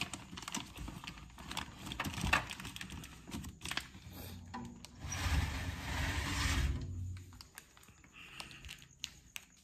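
Close handling noises in the dark: a run of small clicks and knocks, then a rush of noise with a low rumble lasting about two seconds, from about five seconds in, then a few quieter clicks.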